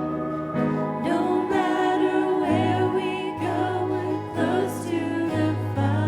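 Music: singing over instrumental accompaniment, with held bass notes that change every second or so.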